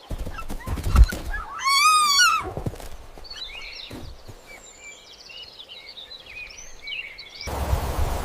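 A few low thumps, then one wavering, high-pitched farm-animal call lasting under a second about two seconds in. Small birds then chirp and twitter for several seconds, and near the end the sound cuts suddenly to a steady rushing noise.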